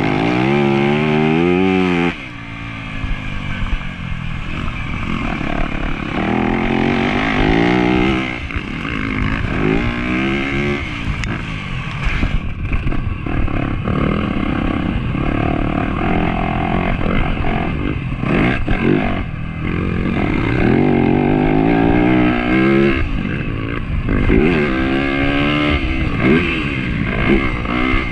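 2024 Yamaha YZ250F's 250 cc single-cylinder four-stroke engine under hard riding, revving up and easing off again and again, its pitch climbing with each burst of throttle. About two seconds in the throttle is chopped and the engine note falls away abruptly.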